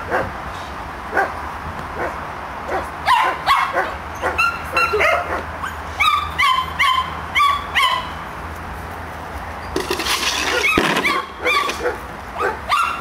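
Border collie barking repeatedly in short, high barks, coming about two a second at times. A brief rush of noise comes about ten seconds in.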